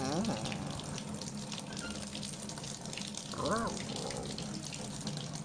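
Steady rush of water running from a tap, with a cat meowing twice: once right at the start and again about three and a half seconds in.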